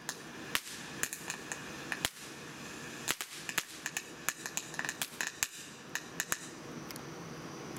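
Black Cat Kaboodle fountain firework burning, its spray of sparks giving a steady hiss with irregular sharp crackling pops. The pops thin out near the end.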